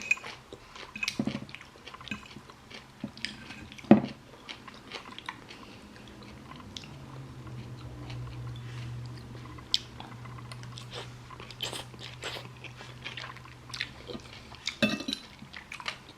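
A person eating close to the microphone: chewing with crunchy bites and wet mouth clicks and smacks. A low steady hum comes in about six seconds in and stops near the end.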